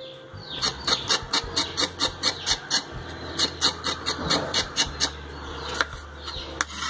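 Kitchen knife blade scraping the skin off a red carrot: quick rasping strokes, about five a second, thinning out to a few near the end, over a steady low hum.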